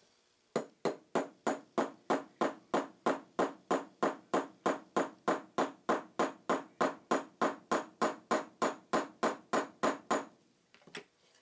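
Small hammer tapping steadily on metal, about three light blows a second for nearly ten seconds, setting a hinge pin into an oil box lid on a crank bearing casting.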